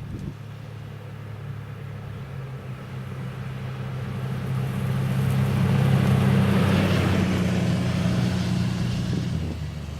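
A utility side-by-side UTV driving past at a steady 25 mph. Its engine hum and tyre noise swell to a peak about six seconds in, then fade as it moves away.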